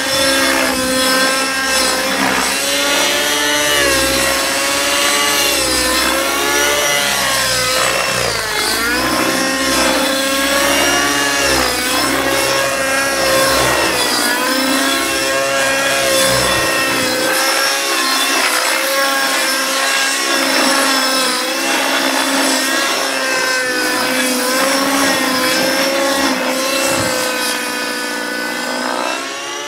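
Align T-Rex 600 Nitro RC helicopter's nitro glow engine and rotors whining at high speed, the pitch dipping and rising again and again as it flies aerobatic manoeuvres. It is a new helicopter being broken in.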